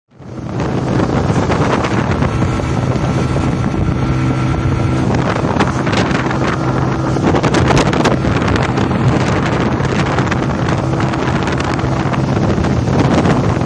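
Motorcycle engine running steadily while riding at speed, with heavy wind buffeting on the phone's microphone.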